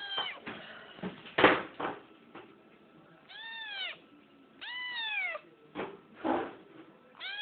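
White domestic cat meowing close up: a meow right at the start, two clear meows in the middle that rise and fall in pitch, and another beginning near the end. Between them come a few short knocks, the loudest about a second and a half in.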